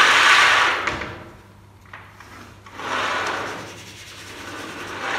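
Wooden batten sliding and rubbing against a chalkboard as it is moved into place: a loud scrape at the start, another about three seconds in, and a fainter one near the end.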